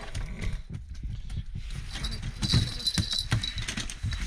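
A freshly landed burbot flopping on the plywood floor of an ice hut: irregular slaps, thumps and knocks, with rustling as people move out of its way.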